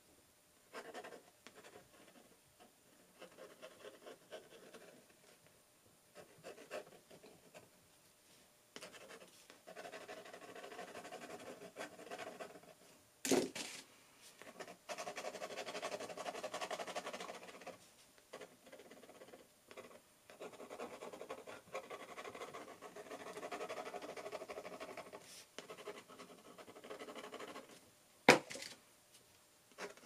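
Fountain pen nib scratching over watercolour paper in stop-start sketching strokes, some short and some running for a few seconds. A sharp click cuts in about halfway through, and a louder one comes near the end.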